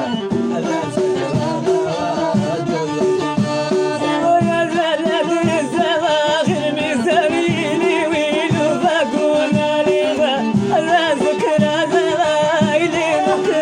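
Traditional folk music played acoustically, without added effects: a steady plucked and percussive rhythm with a wavering, ornamented melody over it, entering more strongly about four seconds in.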